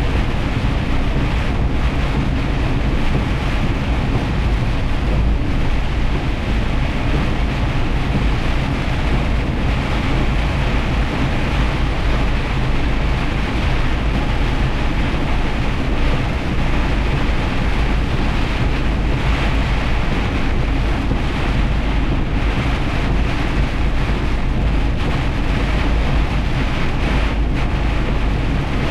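Semi truck driving through heavy rain: a steady, unbroken drone of engine and road noise with the hiss of tyres and rain on wet pavement.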